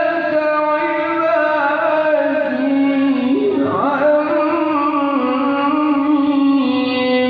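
A male qori (Quran reciter) chanting solo into a microphone, heard through a loudspeaker. He holds long notes with a wavering ornament near the middle, then settles onto another long held note.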